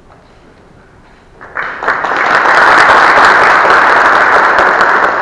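Audience applauding. The clapping starts about a second and a half in and quickly swells to full, steady applause.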